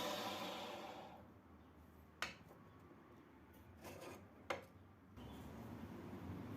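A machine's steady noise dies away in the first second, then two sharp metallic clinks come about two seconds apart, with faint handling sounds between.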